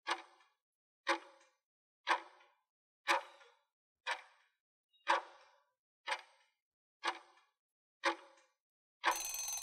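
Quiz countdown timer sound effect ticking once a second, ten ticks, counting down the time to answer. About nine seconds in it ends with a longer ringing signal that marks time up.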